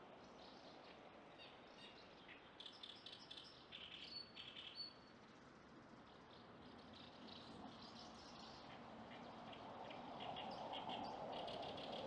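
Faint, rapid twittering chirps of Asian house martins at their mud nest, in two spells, over a steady rushing background that grows louder near the end.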